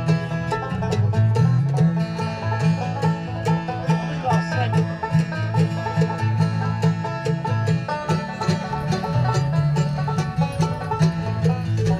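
Bluegrass string band playing an instrumental: fast picked five-string banjo over acoustic guitar and mandolin, with an upright bass walking steady low notes.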